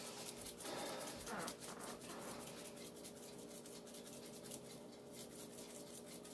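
Faint scratchy rubbing and light ticking as a hand-held bottle is worked over raw chicken breasts in a metal roasting pan, over a faint steady hum.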